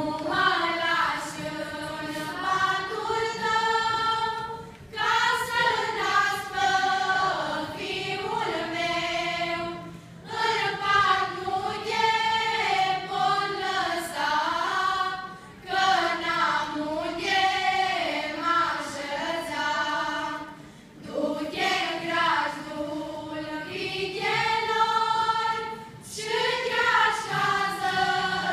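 Choir of women and children singing a traditional Romanian song together, in phrases of about five seconds with short breaks between them.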